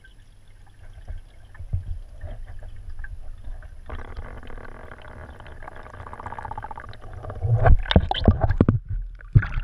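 Underwater recording: a muffled low rumble of moving water against the camera housing, with a steady hum joining about four seconds in, then loud, irregular splashing and knocking near the end as the camera moves up toward the surface.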